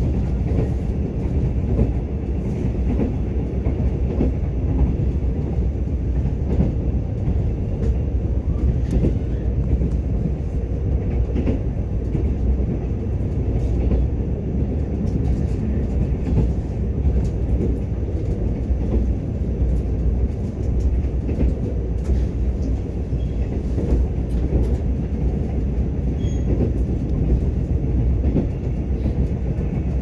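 Mugunghwa-ho intercity train running along the line: a steady low rumble of wheels on rail with faint, irregular clicks.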